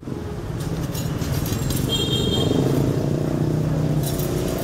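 Street traffic of motorbikes and cars, engines running in a steady low rumble, with a brief high beep about two seconds in. A few light metallic clicks come through the rumble.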